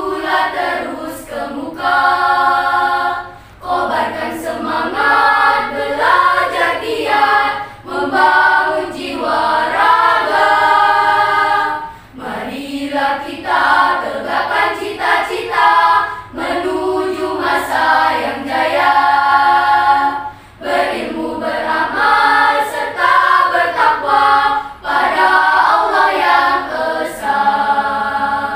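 Children's school choir singing an Indonesian school anthem, unaccompanied, in phrases of about four seconds with short breaths between.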